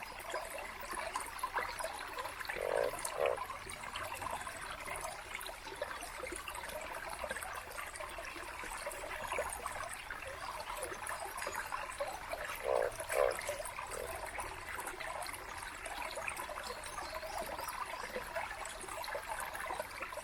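Small mountain stream babbling and trickling over rocks, a steady, lively rush of water. A brief louder burst rises out of it about three seconds in and again about thirteen seconds in.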